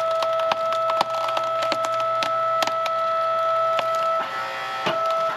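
Hydraulic log splitter forcing a log apart: repeated sharp cracks and splintering of the wood over the steady whine of the splitter's pump, which drops out about four seconds in.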